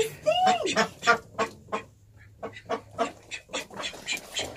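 Ducks quacking in a rapid run of short calls, with one rising-and-falling call near the start.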